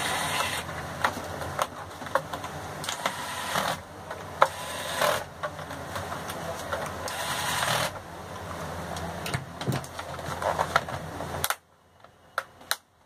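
Corded electric screwdriver motor whirring as it drives the screws in a laptop's bottom panel, its sound rising and falling, with sharp clicks of the bit on the screws. The motor stops about a second and a half before the end, leaving a few faint clicks.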